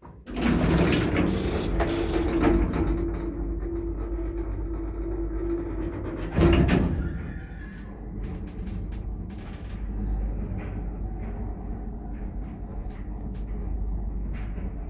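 1980s Končar traction lift's automatic sliding car doors closing after a floor button is pressed, with a steady motor hum. A loud clunk comes about six and a half seconds in, and the car then travels with a low steady rumble.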